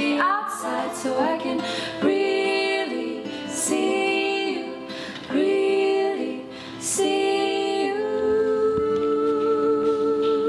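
Women's voices singing in close harmony over acoustic guitar, a few held phrases ending on a long sustained chord.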